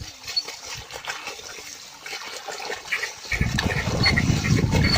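Muddy water splashing and sloshing as a bull drags a plough through a flooded paddy field, getting much louder about three seconds in.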